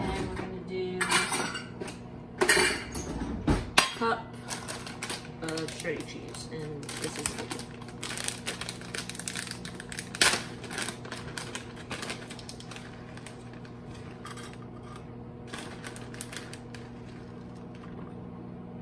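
Kitchen handling sounds: clinks and knocks of a spice jar and a glass mixing bowl, and the crinkling of a plastic bag of shredded cheddar being opened and tipped out. A steady low hum runs underneath.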